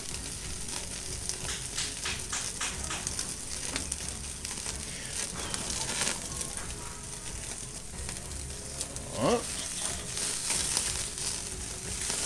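Roast beef searing fat-side down on a gas grill's infrared burner, sizzling and crackling steadily as the dripping fat feeds a small grease fire. There is one short rising squeak about nine seconds in.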